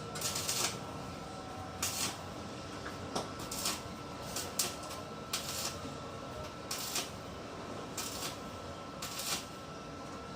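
Short scraping or rustling strokes, about a dozen at irregular intervals, over a faint steady whine.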